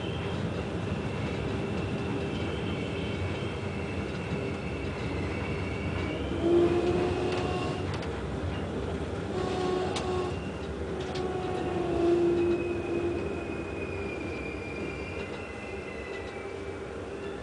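A moving train heard from inside a passenger carriage: a steady rumble with high whining tones that waver and come and go, swelling louder twice, about six and twelve seconds in.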